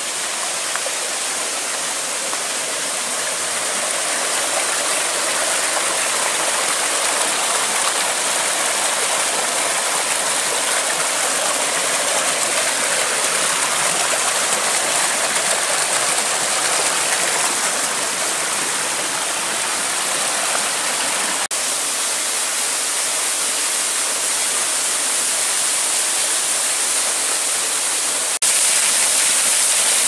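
Water rushing between boulders in a rocky stream, a steady rush that slowly grows louder. Near the end it turns suddenly louder and brighter with the splash of a small waterfall pouring onto the rocks.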